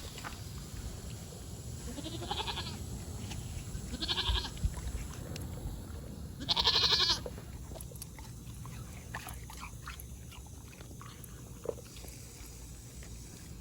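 Goat bleating three times, a couple of seconds apart, the third call the loudest and longest, followed by scattered light clicks.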